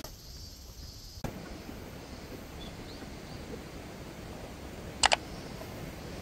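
Steady outdoor background hiss with a few faint high chirps, broken about five seconds in by a quick, sharp double click, the loudest sound.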